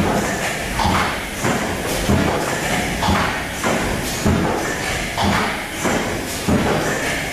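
Automatic suppository forming, filling and sealing machine running, its stations cycling with repeated knocks and short hisses about once or twice a second.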